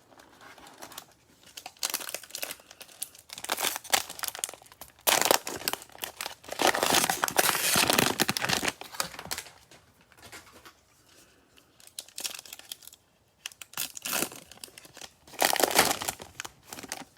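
Cellophane trading-card pack wrapper being torn open and crinkled in bursts, the loudest stretch about five to nine seconds in and another near the end.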